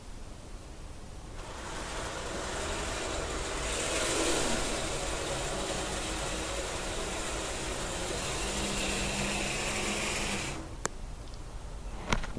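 N gauge model of a Freightliner Class 66 diesel locomotive running along the track. Its small electric motor and wheels make a steady whirr that starts about a second and a half in and stops suddenly near the end, followed by a single click.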